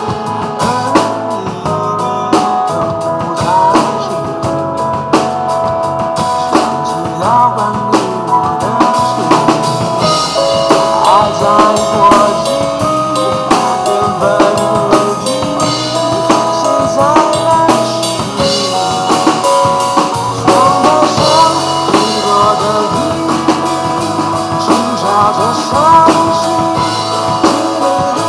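Drum kit played live with sticks over a recorded pop backing track. A melody line and chords run continuously over the beat.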